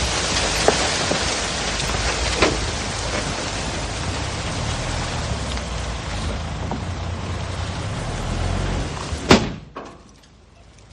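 Heavy diesel earthmoving machinery running: a steady low engine rumble under a rough, hissing noise, with a few knocks. About nine seconds in there is one sharp bang, after which the sound drops away much quieter.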